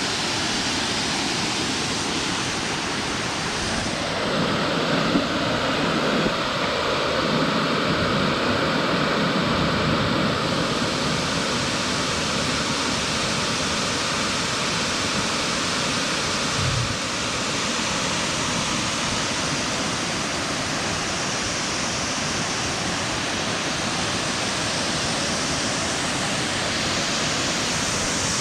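Waterfall rushing in a steady, even roar of falling water, with a couple of brief low knocks a few seconds in and another later on.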